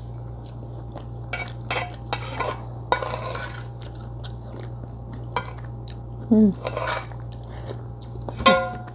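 A metal spoon clinking and scraping against a soup plate several times while someone eats soup, with sipping from the spoon.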